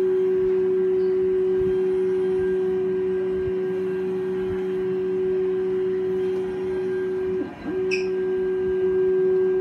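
FDM 3D printer's automatic bed-change mechanism running, its motors giving a steady whine while the finished print plate slides out. Near the end the tone briefly drops and bends, then a short click, and the whine resumes.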